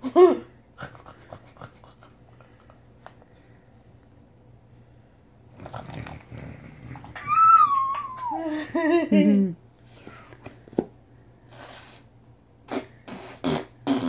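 A baby's long squealing vocal sound about halfway through. It starts high, wavers and slides down in pitch, with a shorter vocal sound at the very start and a few soft handling clicks.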